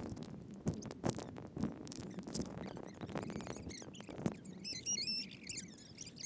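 Water from a garden hose splashing and pattering into a metal bucket as water balloons are filled, with small clicks and knocks. About four and a half seconds in, a wavering high squeak sounds for a second or two.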